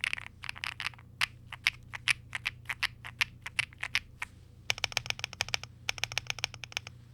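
Keystrokes on a Velocifire Lucky65 mechanical keyboard with Gateron Smoothie linear switches: separate key presses for about four seconds, then fast continuous typing with brief pauses.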